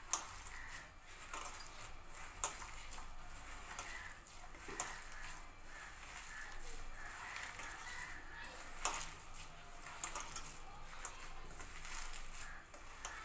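Batter of gram flour and mustard flowers being mixed by hand in a steel bowl: quiet, with a few sharp clicks scattered through.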